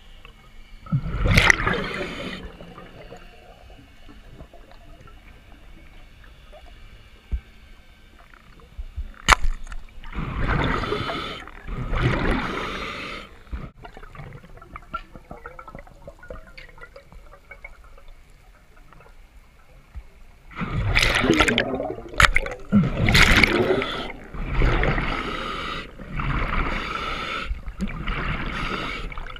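Water splashing and gurgling in several bursts, with a sharp click near the first third and quieter stretches between; the longest run of bursts comes in the last third.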